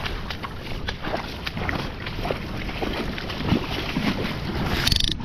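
Gusty wind buffeting the microphone, with splashing and scuffing from wading steps in a shallow river. A short burst of rapid clicking comes near the end.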